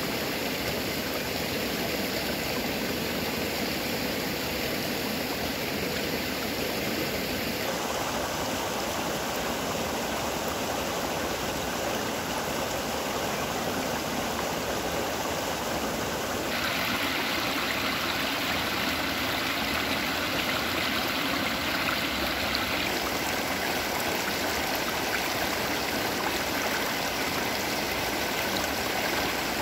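Shallow mountain stream running over stones, a steady rushing and burbling of water. Its character shifts about eight seconds in, and again a little past halfway, where it gets slightly louder.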